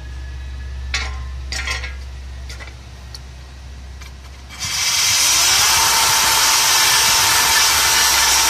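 A few knocks as a power drill with a wire cup brush is set on a rusty steel battery tray, then, about halfway in, the drill starts and the wire brush scours rust off the tray with a loud, steady scraping over a faint motor whine.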